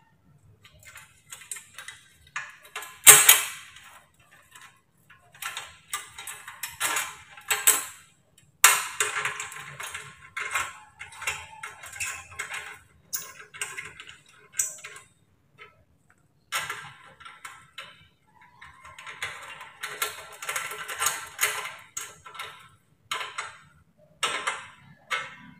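A 2 mm aluminium alloy heat guard being handled and bolted onto a Honda Click 125i's muffler: irregular metallic clicks and short scrapes of the plate and its bolts against the muffler, with one louder knock about three seconds in.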